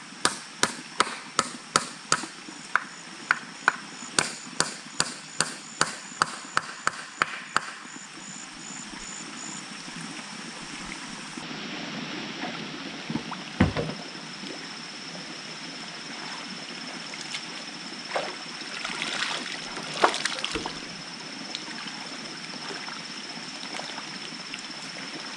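Rapid, even chopping strikes, about three a second, that stop about seven seconds in. Later, water sloshing and splashing as someone wades through a shallow pond, with a louder splash twice.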